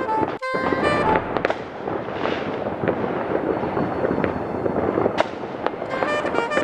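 Fireworks going off: dense crackling and popping with a few sharper bangs. Music plays at the start, drops out under the fireworks, and comes back near the end.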